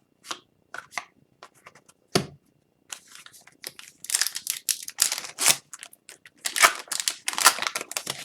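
Trading cards handled with a few light clicks, then from about three seconds in a hockey card pack's wrapper being torn open and crinkled, rustling loudly until near the end.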